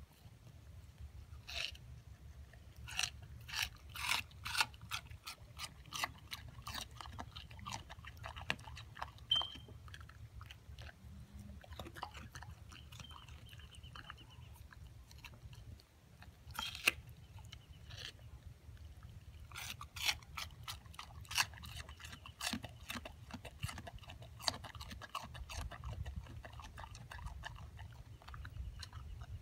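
Siberian husky chewing a slice of watermelon, biting into the rind in crunchy bursts of quick bites with short pauses between.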